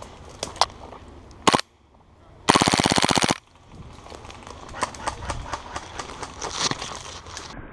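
A KWA Skorpion gas blowback airsoft SMG firing one full-auto burst of just under a second, a fast even rattle, about two and a half seconds in. A single sharp crack comes about a second before it, and scattered lighter clicks and pops follow.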